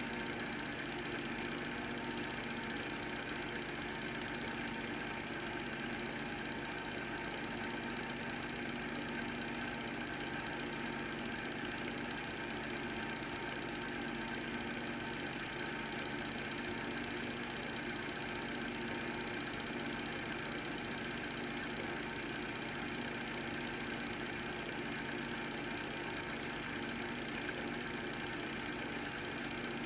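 Film projector running steadily: a constant motor hum with a mechanical whirr.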